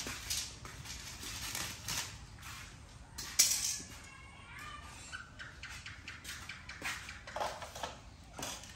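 Small metal parts and hand tools clinking and clattering as they are picked up and set down on a concrete floor, in irregular clicks with one sharp clank about three and a half seconds in.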